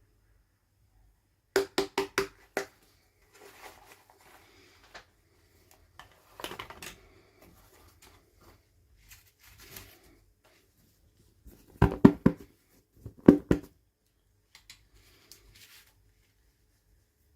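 Hard plastic toy packaging being handled: quick bursts of sharp clicks and taps, about five in a row near the start and the loudest groups near the end, with soft rustling between.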